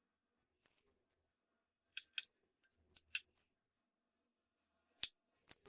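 Sharp, light clicks of small tools and parts being handled on an open laptop during disassembly: two pairs of quick clicks about two and three seconds in, then a louder click about five seconds in followed by two more.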